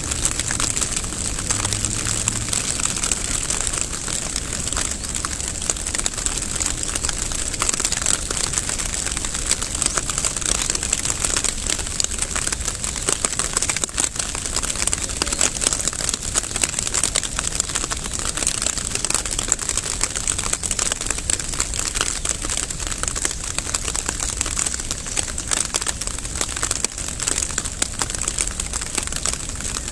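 Steady rain falling, a dense, even patter of many small drops with no break.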